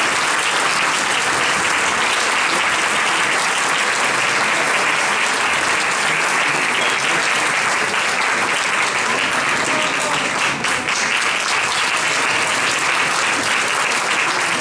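Audience applauding steadily, a long unbroken round of clapping with a brief dip about ten seconds in.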